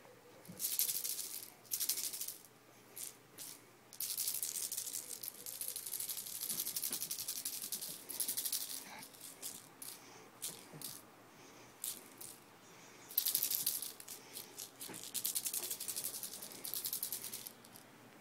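A dry, high-pitched rattle shaken in bursts: short shakes of a second or less, and longer runs of a few seconds starting about four seconds in and again near the end.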